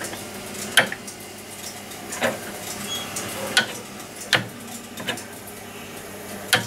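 The carrier frequency range selector of a vintage RF signal generator being turned, its rotary switch clicking through positions about six times, with a steady low hum underneath.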